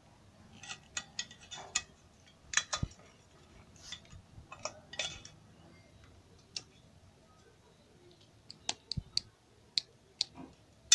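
Scattered sharp clicks and snaps from a screwdriver, wired to the chassis ground, being worked under a CRT television's anode cap. This discharges the high voltage stored by the flyback. There are a few clicks about two to three seconds in and a quick run of sharp ones about nine to ten seconds in.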